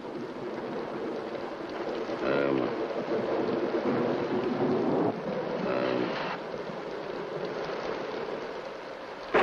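Stormy wind blowing steadily, with two brief pitched sounds about two and six seconds in; right at the end the storm noise jumps suddenly louder.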